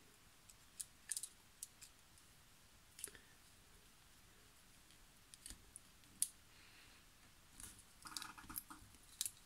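Faint, scattered small clicks and scrapes of plastic parts being handled and pressed together: the clear window insert of a Siku VW Käfer 1303 model car being fitted into its diecast body. The loudest click comes about six seconds in, and a short scraping rub comes near the end.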